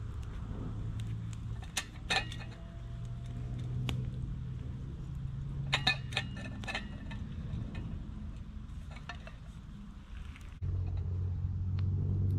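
Metal camp cookware clinking and knocking, a few clusters of sharp clinks with short ringing tones, over a steady low rumble that gets louder near the end.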